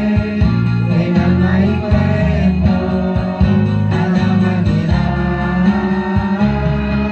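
A hymn sung in unison by mixed male and female voices into microphones, amplified through a PA, over a guitar accompaniment with strong low notes.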